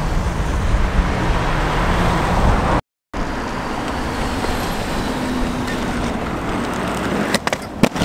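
Steady wash of city road traffic noise, cut by a brief dropout a little under three seconds in. A few sharp clacks come near the end.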